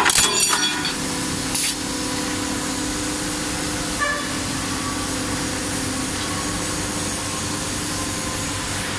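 CNC angle-steel punching and shearing line running with a steady hum. A burst of metallic clattering comes in the first half second, a short burst of noise about a second and a half in, and a single click about four seconds in.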